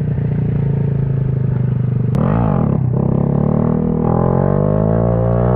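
Honda Grom's 125 cc single-cylinder engine running, with a quick rev up and back down about two seconds in, then its pitch climbing steadily as it accelerates.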